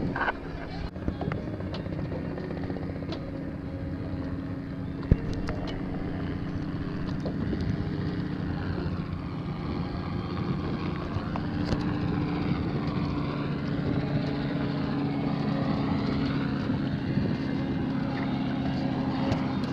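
Engine drone of a low-flying small aircraft passing overhead: steady and even in pitch, with a sweeping, phasing sound in the middle part. A single sharp knock about five seconds in.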